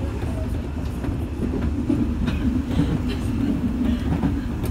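201 series commuter electric train running along the line, heard from inside the driver's cab: a steady low rumble of wheels on rail, with scattered short clicks.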